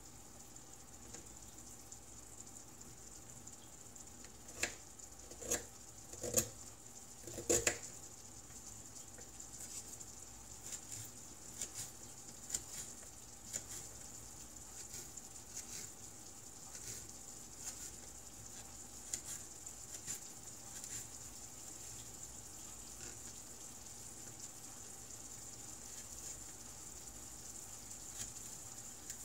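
Chopped food frying in a pan on an electric coil stove: a faint steady sizzle with scattered crackles and pops, the loudest a few sharp pops between about four and eight seconds in.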